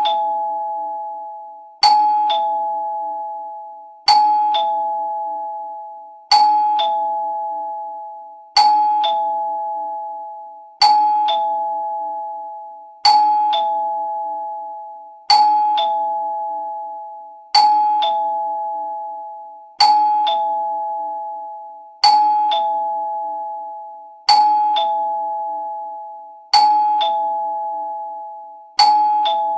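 Two-tone ding-dong doorbell chime, a higher note then a lower one about half a second later, each ringing out and fading. It repeats over and over, about every two and a quarter seconds.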